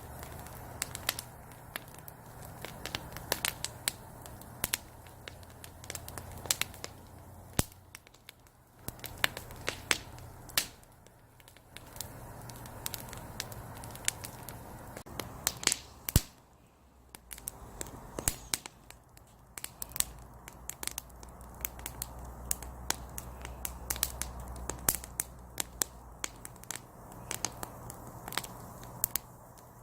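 Firewood burning in a small brazier: irregular sharp crackles and pops over a soft hiss, with a few louder snaps.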